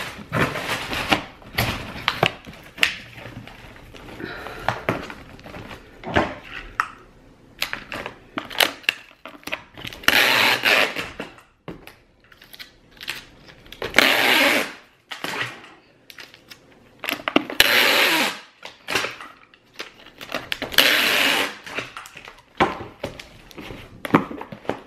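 Packing tape pulled off a handheld tape gun and pressed across a cardboard box: four long pulls of about a second each, starting about ten seconds in. Between them come taps, knocks and rustles of the box being handled.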